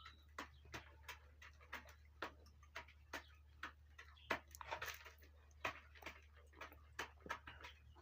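Chickens pecking at feed spread on a flat feed bag: a string of quick, irregular taps, a few each second, over a low steady hum.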